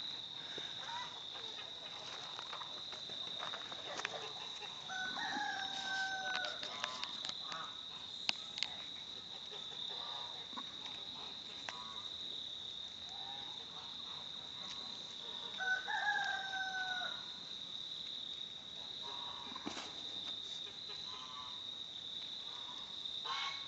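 Poultry calling twice, about five and about sixteen seconds in: each call lasts a second or so, holds its pitch and then drops at the end. Underneath runs a steady high chirring of insects.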